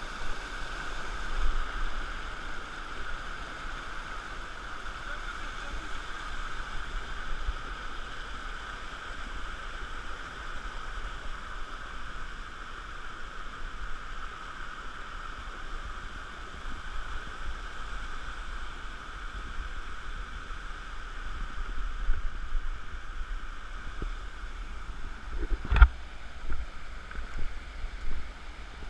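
Steady rush of flowing stream water, with a sharp knock near the end.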